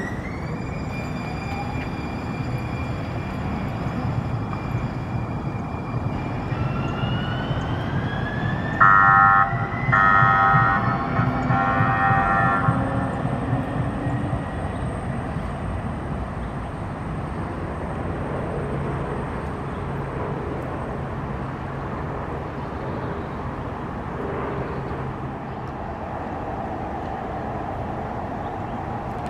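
Siemens light rail train pulling away: its traction motors whine, rising in pitch as it accelerates, over a steady running rumble. About nine seconds in, the horn sounds in three short blasts; after that the train's rumble carries on more quietly as it moves off.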